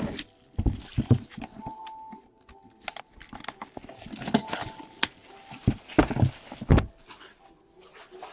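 Blade cutting and tearing open the plastic shrink wrap on a sealed trading-card box, with the wrap crinkling and the box being handled in a run of irregular clicks and rustles. It quietens in the last couple of seconds.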